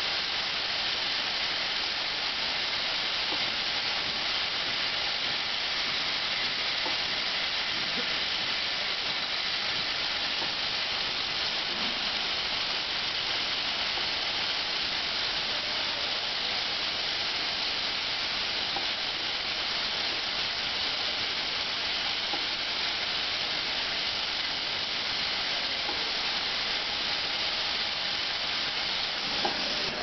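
Automatic pad printing line with a vibratory bowl feeder running: a steady, hissing high-pitched machine noise with no single stroke standing out.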